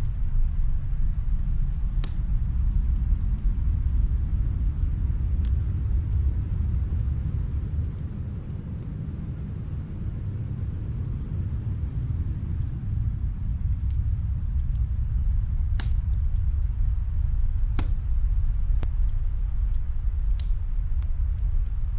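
Wood fire crackling in a fireplace: scattered sharp pops and many small ticks over a low, steady rumble that eases a little around the middle.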